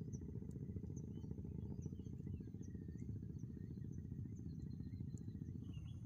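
Wind buffeting the microphone as a steady low rumble, with faint, scattered high chirps above it.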